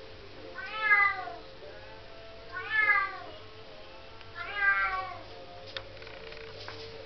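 Bengal cat meowing three times, each call about a second long, rising and then falling in pitch.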